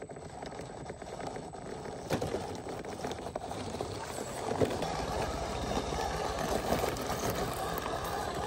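ZP 1007 radio-controlled scale rock crawler climbing over stone: a running drivetrain whir, with the tyres scraping and crunching on rock and grit. It is louder in the second half, with a few knocks as the wheels climb over ledges.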